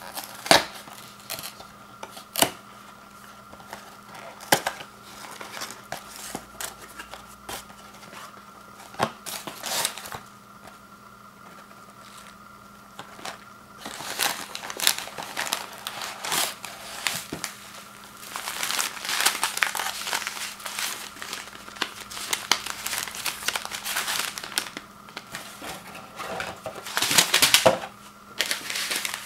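Paperboard oatmeal box being opened by hand: separate sharp snaps and tearing of the cardboard lid and flaps at first, then the paper instant-oatmeal packets rustling and crinkling as they are handled and pulled out of the box, loudest near the end.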